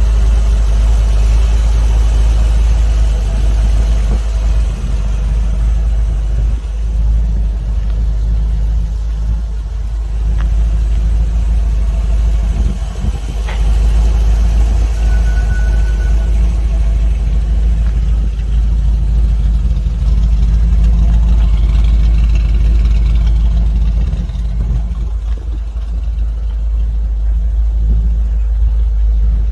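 Small-block Ford V8 in a 1956 Ford F100 idling steadily.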